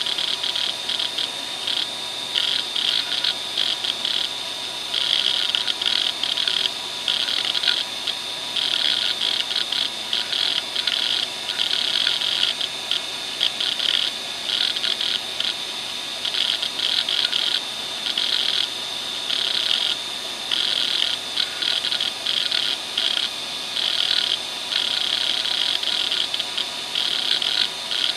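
Western Digital WDAL2540 540 MB 2.5-inch laptop hard drive running a seek test: its head actuator chatters in rapid bursts of seeking, starting and stopping every second or so, over the steady high whine of the spinning drive.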